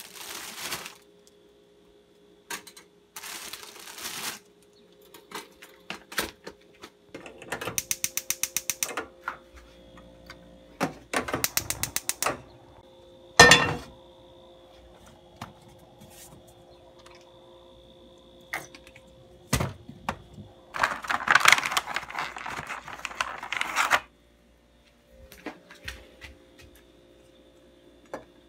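Kitchen handling sounds: a plastic bread bag crinkling, then two runs of rapid, even clicks from a gas stove's igniter, a single loud clank as a frying pan is set down, and a few seconds of busy noise as oil goes into the pan, all over a faint steady hum.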